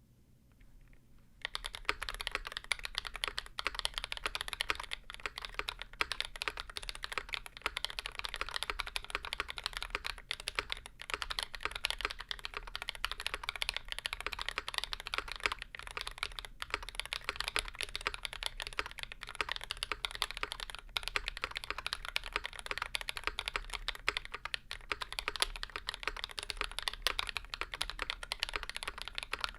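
Continuous fast typing on a Percent Canoe Gen2 mechanical keyboard with lubed YOK Burgundy switches, a 3 mm aluminium plate and GMK keycaps: a dense run of clacky keystrokes. It starts about a second and a half in.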